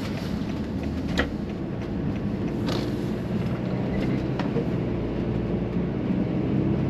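Mercedes Sprinter van driving, heard from inside the cab: a steady engine and road rumble, with a few light clicks or rattles about a second in and again near the three-second mark.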